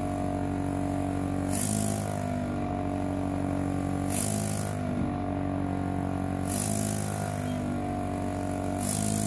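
Background music: sustained chords that change about every two and a half seconds, each change marked by a brief swelling shimmer.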